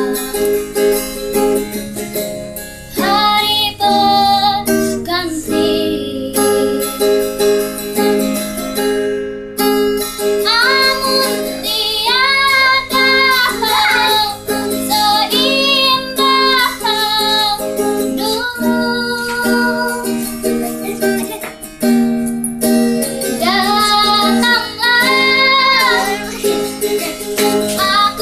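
A young girl singing a song while strumming chords on a ukulele, her voice carrying the melody in phrases over the steady strumming.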